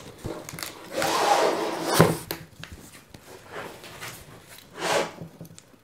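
Cardboard shipping box being handled and turned over on a tabletop: a rubbing, scraping stretch, a sharp knock as the box meets the table about two seconds in, and another brief scrape near the end.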